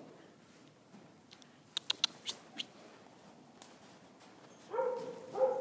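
A few sharp clicks, then two short animal calls near the end, each rising at the start and then held.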